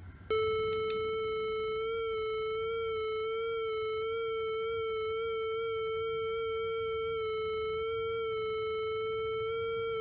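A 555 timer light-to-sound circuit gives a steady, buzzy electronic tone of middling pitch, set by a flashlight shining on its light-dependent resistor. The tone switches on with a click a moment in and wavers slightly in pitch as the light on the sensor shifts.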